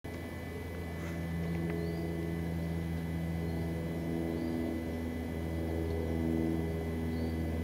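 Bagpipes playing: a steady low drone under a slow tune whose notes change every second or so.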